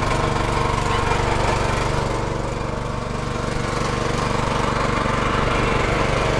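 Small petrol engine running steadily with an even, unchanging note.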